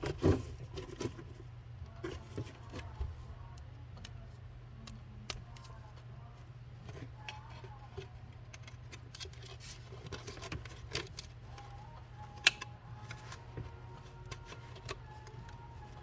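Scattered small clicks and rattles of hand tools and rivets being handled against a plastic part, with one sharp click about twelve seconds in, over a steady low hum.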